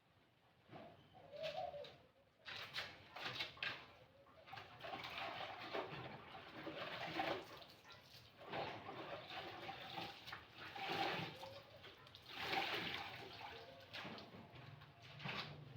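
Clothes being scrubbed and sloshed by hand in water, in irregular swishing bursts, with a dove cooing in the background.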